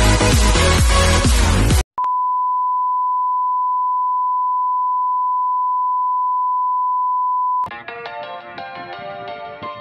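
Loud electronic dance music cuts off about two seconds in and gives way to a steady 1 kHz test tone, the reference tone played with television colour bars, which lasts about five and a half seconds. The tone then stops and a softer song begins.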